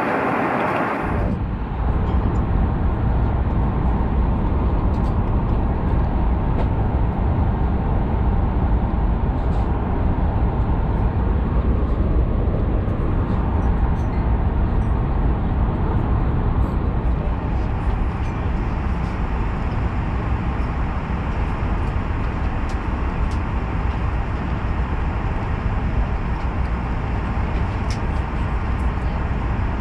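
Steady drone of an airliner cabin in flight, from engine and airflow noise, starting about a second in, with a few faint clicks over it.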